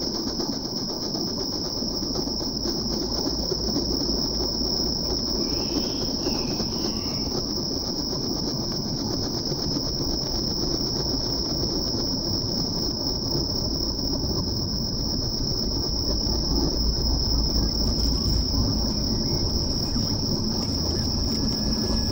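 Experimental dark-ambient electro-acoustic drone: a steady high-pitched whine, close to a cricket chorus, held over a dense rumbling low texture of layered field recordings, treated acoustic sources and synthesizer.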